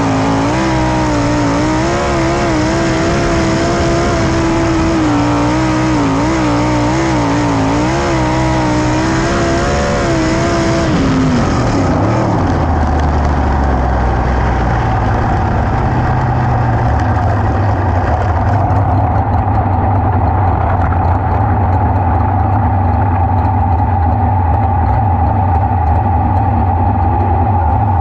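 Sprint car V8 engines running hard on a dirt track, the engine note rising and falling with the throttle. About eleven seconds in, the pitch drops sharply as the car slows, and a lower, steadier engine rumble follows.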